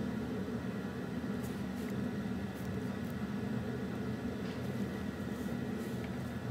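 A steady low hum of room background noise, even in level throughout, with a few faint soft ticks.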